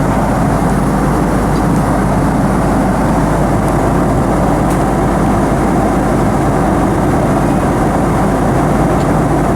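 Steady in-flight airliner cabin noise: the even roar of jet engines and airflow, unchanging throughout.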